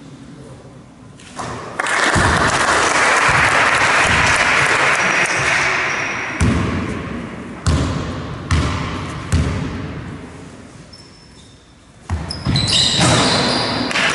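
A basketball bouncing on a hardwood sports-hall floor, four single bounces about a second apart, as a free-throw shooter dribbles before the shot. Near the end come more knocks and short high squeaks of shoes on the court as play resumes. Earlier there are a few seconds of loud, even rushing noise.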